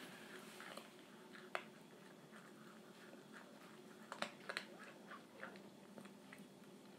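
Pembroke Welsh Corgi puppy eating dry kibble from a collapsible silicone bowl: faint, scattered crunches and clicks, with a few together about four seconds in.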